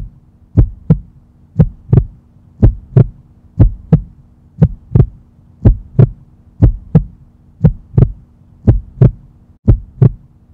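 Heartbeat: a steady lub-dub, two short low thumps about once a second, over a faint steady low hum.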